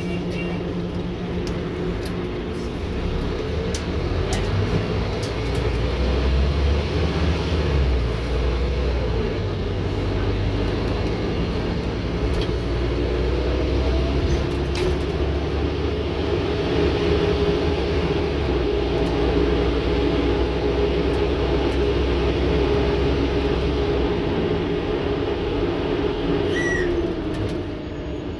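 Scania N230UD OmniCity bus's diesel engine heard from inside the cabin, building up about four seconds in and pulling hard under load, sounding tired. A drivetrain whine rises with speed and falls away near the end as the engine eases off and the bus slows.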